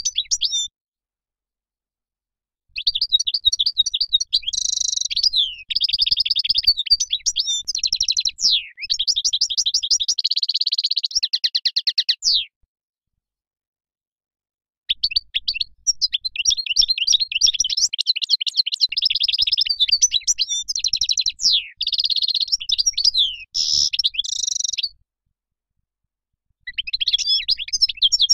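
European goldfinch singing: long bouts of rapid, liquid twittering and trills, broken by pauses of two to three seconds.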